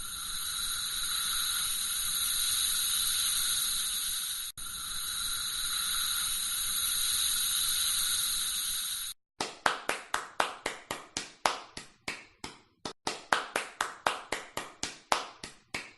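Air hissing steadily out of a punctured tyre for about nine seconds, with a brief break midway. Then hand clapping: separate sharp claps, several a second, to the end.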